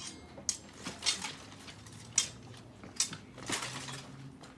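Steel longswords and plate armour clashing in a live-steel sparring bout: a string of about six sharp metallic clacks, the loudest about two seconds in.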